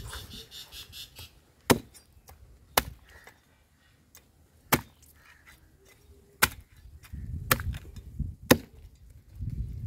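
Heavy cleaver chopping through a large common carp's head on a wooden chopping block: six sharp, separate chops, spaced one to two seconds apart.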